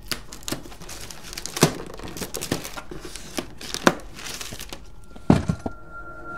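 Gift wrapping paper being torn and crumpled as a present is unwrapped: a run of crackling rustles and rips, with a heavier thump about five seconds in. A steady, eerie electronic tone starts near the end.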